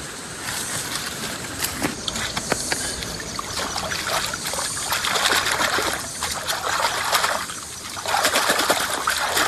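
Water trickling and splashing in swells, with small clicks, as a muddy clump of freshly dug plant roots is rinsed clean by hand in water.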